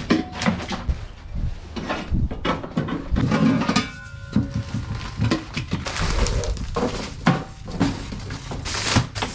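Irregular clattering, knocking and rustling of things being unloaded from a utility vehicle's cargo bed: plastic seed trays and pots knocking together, and plastic bags of compost being shifted and lifted.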